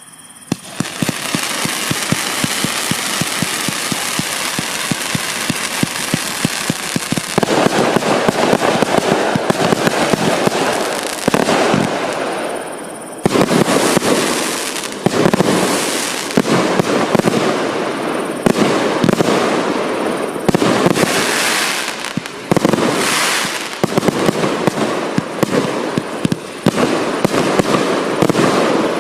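A 146-shot fireworks cake with 0.8-, 1- and 1.2-inch tubes firing a rapid, continuous stream of shots. The firing grows louder and fuller about seven seconds in, eases briefly around the thirteen-second mark, then carries on in surging volleys.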